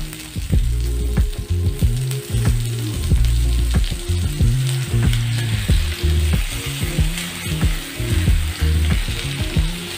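Chicken breasts sizzling in hot olive oil in a frying pan as they are turned over with a wooden spatula, with repeated clicks and scrapes of the spatula against the pan. A low, stepped bass line of background music plays underneath.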